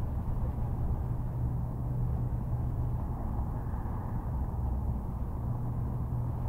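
A steady low rumble with a constant deep hum underneath, unchanging throughout.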